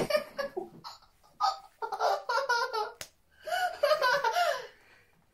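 A young girl laughing and giggling: a few short bursts, then two longer runs of high-pitched laughter.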